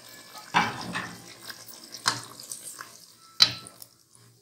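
Wooden spoon stirring water into chicken korma in a hot pot: three strokes of sloshing, hissing liquid, the last ending in a sharp knock of the spoon against the pot about three and a half seconds in.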